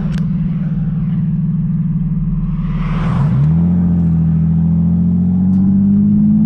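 Lexus IS300's 2JZ-GE straight-six running under load, heard from inside the cabin. About three seconds in its pitch drops briefly, then climbs steadily. The car is running in limp mode, which the owner later traces to a faulty throttle-body plug.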